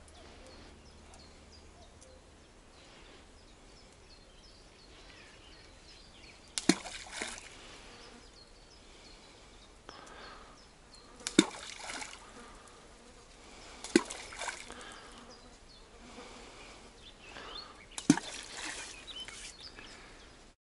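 Dense groundbait balls thrown into a small river, each landing with a sharp plop and a brief splash, four times a few seconds apart.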